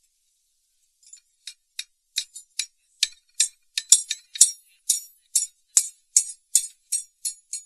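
Small hammer tapping rapidly on a thin steel band at the end of a pharsa's wooden handle, light metal-on-metal ticks about four a second. The taps start about a second in and get louder, the hardest near the middle.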